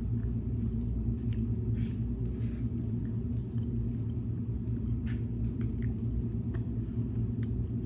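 Soft, wet chewing and small scattered clicks of someone eating baked beans, over a steady low hum.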